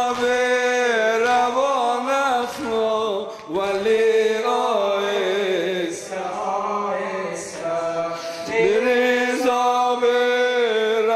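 Solo male reciter chanting a Shia mourning lament (latmiya), unaccompanied, in long wavering held notes that bend up and down, with short breaths between phrases about three and a half and eight and a half seconds in.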